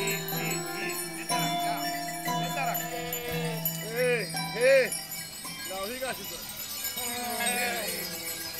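Goat bells clinking and ringing from a passing herd of goats, with several goats bleating in the second half, one bleat the loudest.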